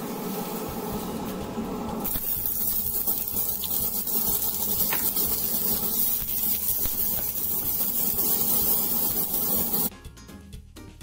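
Oil pouring into a frying pan for about two seconds, then sliced onion sizzling in the hot oil as it is stirred with a spatula: a steady, loud hiss. About ten seconds in it cuts to music.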